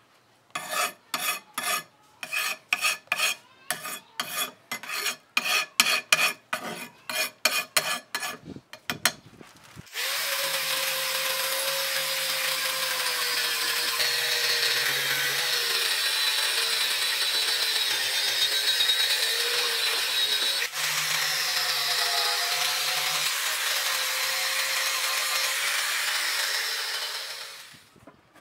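Quick, rhythmic scraping strokes against a steel knife blade, about three a second. About ten seconds in, a handheld angle grinder with an abrasive disc starts and runs steadily with a constant whine, grinding forge scale off the freshly quenched blade. It cuts off shortly before the end.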